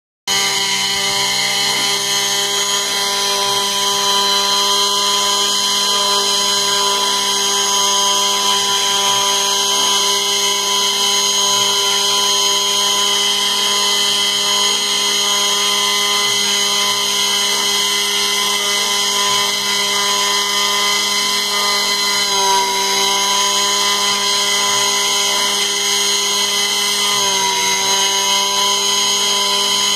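CNC router spindle running steadily with a high whine as a small bit carves wood. Its pitch dips briefly twice in the later part.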